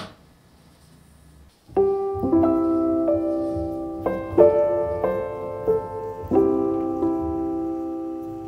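Slow solo piano background music that comes in about two seconds in, with held chords changing every second or two.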